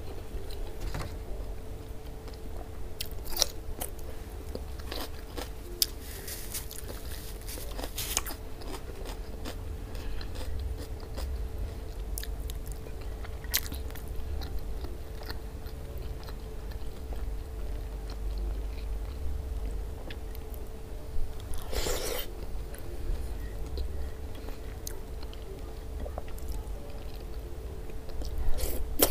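Close-miked eating: chewing and wet mouth clicks on mouthfuls of rice in okra stew sauce, eaten by hand. There is a longer noisy mouth sound about 22 seconds in, over a faint steady hum.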